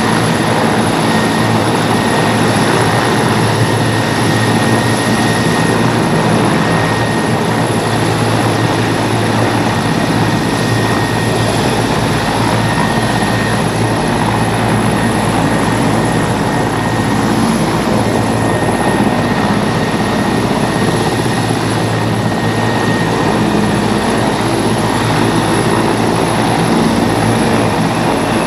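Army helicopter hovering low with its rotor and engines running steadily, its rotor downwash blowing water off the wet ground. A loud, unbroken rotor noise with a faint steady high whine.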